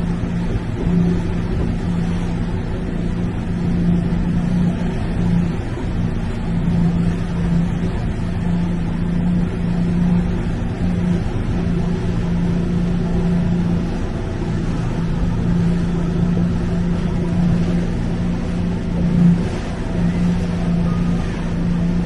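A boat's engine running at a steady speed under way, a constant hum with no change in pitch, over a haze of wind and water noise.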